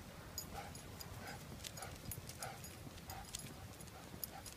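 Faint footsteps of an elderly golden retriever walking beside the sidewalk: light, irregular taps and scuffs about two or three a second, with the sharp ticks of his claws.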